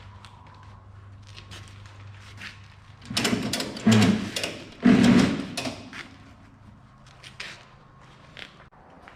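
Scattered light clicks and knocks, then a burst of clatter about three seconds in with two heavy bangs near four and five seconds, over a faint steady low hum.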